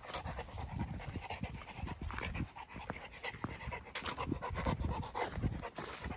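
A dog panting, with scattered clicks and knocks in the background.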